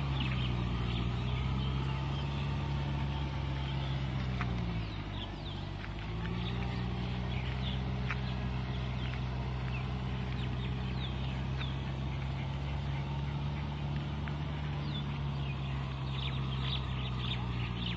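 Kubota tractor's diesel engine running steadily under load as it drives a rotavator; its note dips about five seconds in and picks back up. Many short, high bird calls sound over it.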